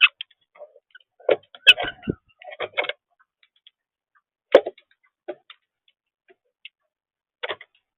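Scattered sharp clicks and taps with a few short chirps from birds feeding at a feeder, in small clusters with gaps of a second or two between them.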